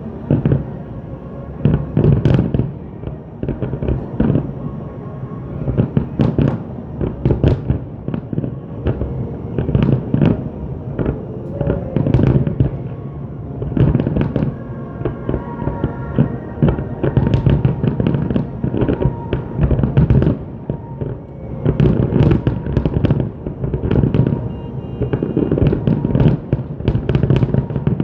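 Aerial fireworks display: shells bursting in quick, dense succession, sharp bangs and booms overlapping throughout.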